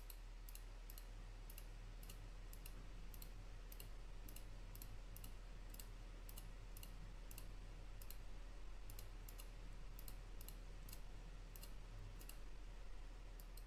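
Faint, evenly spaced clicks, about two a second, over a low steady hum.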